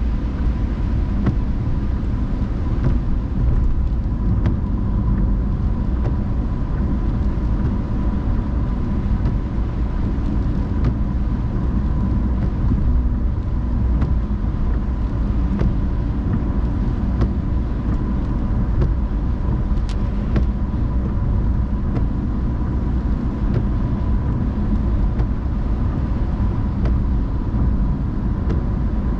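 Car driving on rain-wet roads: a steady low rumble of engine and tyres, with a faint steady tone and scattered light ticks over it.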